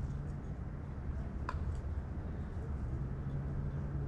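Steady low hum, with a single small click about a second and a half in.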